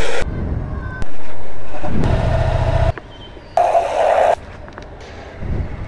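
Water from a hose spray gun hissing into a plastic bucket of soapy water, in several bursts that start and stop abruptly: a short one at the start, a longer one of about two seconds, a shorter one, and another near the end.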